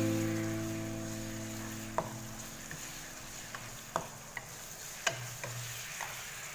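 Sliced pork frying quietly in a nonstick wok while a wooden spatula stirs it, knocking sharply against the pan about four times. A held music chord fades out over the first few seconds.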